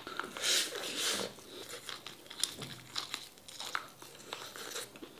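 Close-up eating sounds of a person chewing steamed lobster claw meat: two louder noisy mouth sounds about half a second and a second in, then quieter chewing with scattered small clicks.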